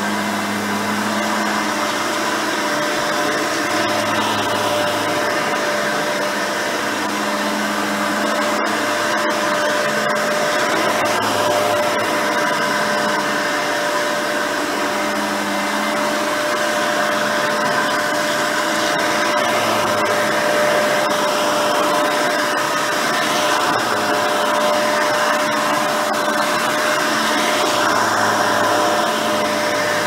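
Hoover Elite 350 upright vacuum, with a 5-amp motor and a seven-blade fan, running steadily on carpet: a constant motor-and-fan whine. A lower hum swells and fades every few seconds.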